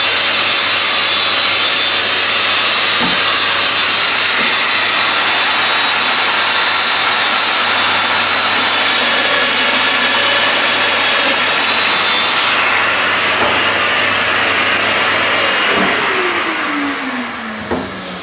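Festool Domino joiner's motor running steadily with a loud hiss, then switched off about 16 seconds in and spinning down with a falling whine.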